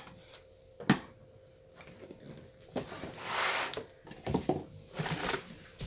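Plastic bottles and containers being handled under a sink cabinet: a sharp knock about a second in, a brief swishing rustle past the halfway point, then a few light clunks near the end.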